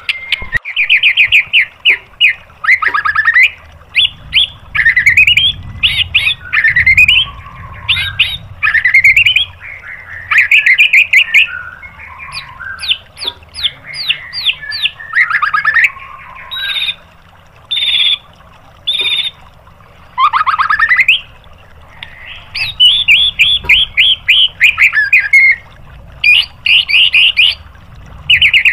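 White-rumped shama (murai batu) singing a loud, varied song. It runs through rapid-fire volleys of quick repeated notes, rising whistled sweeps and a few very high thin notes, in short phrases broken by brief pauses.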